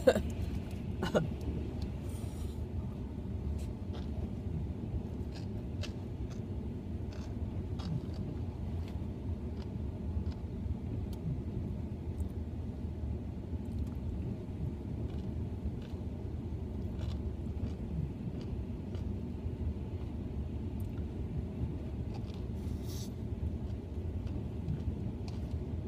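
Steady low rumble of a car engine idling, heard from inside the cabin, with faint scattered clicks and mouth sounds from chewing seaweed salad eaten with chopsticks out of a plastic tray. A couple of louder mouth sounds come in the first second or so.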